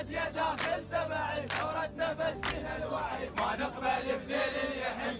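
Protest chant-song: a chorus of men chanting lyrics in Iraqi Arabic in unison over a heavy drum hit about once a second. A low held tone underneath drops out about halfway through.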